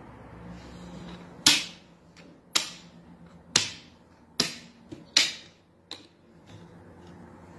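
Plastic checker (dama) pieces set down sharply on a wooden board as moves are played: about five crisp clacks roughly a second apart, with a couple of lighter taps in between.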